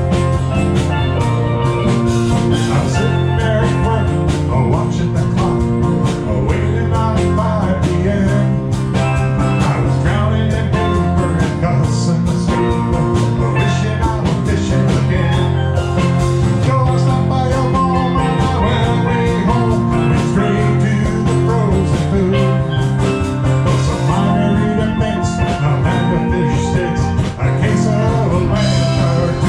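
Live band music with steel drums, guitar, bass guitar and drum kit playing a steady beat.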